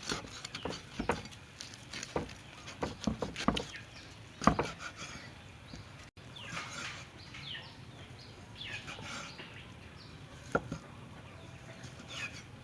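Knife cutting boiled beef head meat on a wooden cutting board: a series of sharp knocks through the first half, then softer, fainter cutting sounds.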